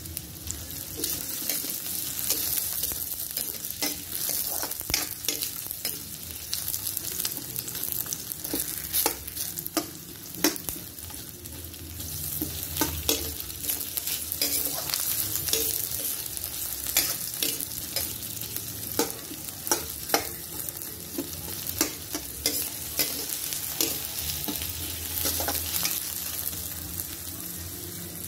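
Onions sizzling in hot oil in a kawali (wok-style frying pan), with a spatula stirring and knocking against the pan many times.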